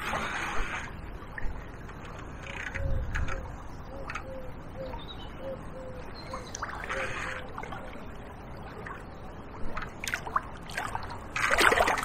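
A hooked chub thrashing at the surface close to the bank, heard as a loud burst of splashing near the end. Before that, only faint water noise and light scattered clicks while it is played in.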